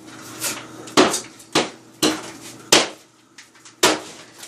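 Hammer striking a wall during demolition: about five sharp knocks at irregular intervals.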